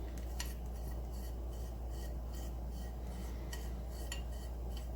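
Light metallic clicks and rubbing from a restored 15-inch Crescent adjustable wrench being handled, its jaw worked back and forth, over a steady low hum.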